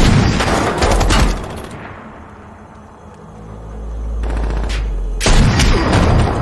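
Film gunfire: a heavy rifle shot right at the start and another about a second in, each with a long echoing tail. A low rumble builds in the middle, then a burst of rapid gunfire comes near the end.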